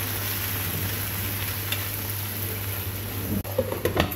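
Sliced leeks sizzling steadily in a frying pan. About three and a half seconds in, a glass pan lid clinks and rattles as it is set on the pan.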